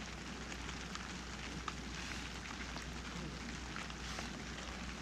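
Quiet, steady outdoor hiss with a few faint, scattered ticks.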